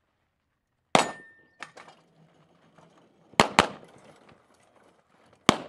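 Pistol shots from a 9mm 1911 fired on an IDPA stage: one shot about a second in followed by a short metallic ring, then two quick pairs of shots, each pair about a fifth of a second apart.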